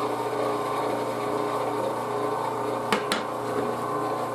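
1.5 HP electric meat grinder's motor running steadily with an even hum. Two sharp knocks come close together about three seconds in.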